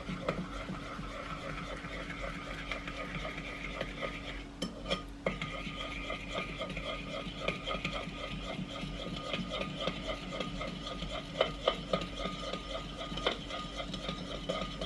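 Melted butter and granulated sugar being stirred in a mixing bowl: a utensil scraping round the bowl in quick, rhythmic strokes, about three or four a second, with a brief pause about five seconds in.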